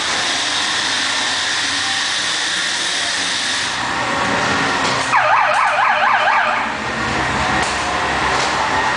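Dark-ride sound effects: a steady loud hiss, then a low rumble from the ride car running along its track. About five seconds in, a warbling siren-like wail rises and falls about four times a second for a second and a half.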